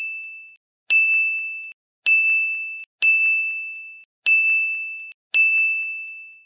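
A bright bell-like ding sound effect repeated about once a second, roughly five times. Each ding is a single clear tone with a ringing shimmer above it that fades, then stops sharply before the next one.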